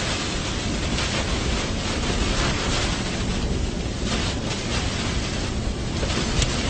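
Rushing wind noise that swells and fades in gusts, with a sharp click about six and a half seconds in.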